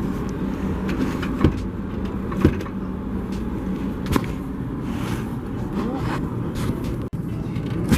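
A car running: steady engine and road noise with a few short knocks.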